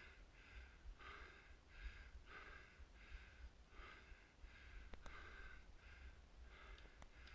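Quick, heavy breathing close to the microphone, short puffs about two per second, as from someone out of breath. Two faint sharp clicks come about two seconds apart in the second half.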